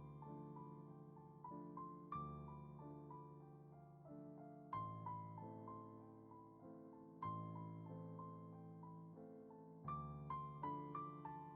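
Quiet background piano music: slow held chords with a gentle melody, the bass changing every two to three seconds.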